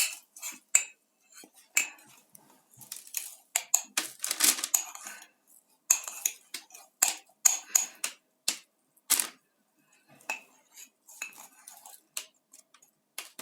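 A spoon stirring melted sugar and baking soda in a glass, with irregular clinks and scrapes against the glass walls, growing sparser in the second half.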